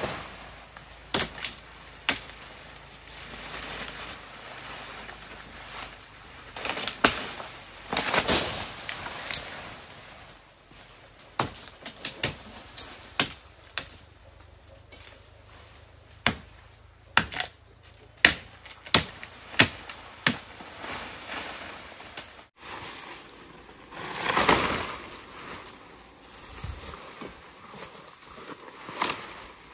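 Irregular sharp cracks and chops of woody branches being cut and snapped, with bursts of leafy rustling as cut branches are pulled and piled.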